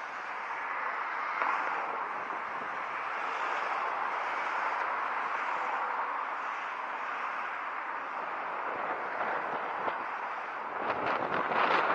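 Steady rushing wind and road noise from riding an electric scooter along a pavement. It grows rougher near the end, with a few short knocks.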